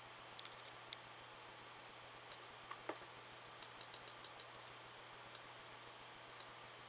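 Faint, scattered clicks of a computer mouse being worked to scroll a web page, with a quick run of about six clicks near the middle, over a steady low hiss.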